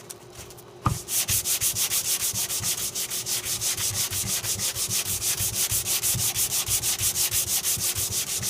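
Hand sanding with Diablo sandpaper on a soft foam Norton hand sanding block. After a single knock about a second in, it makes fast, even rubbing strokes, several a second.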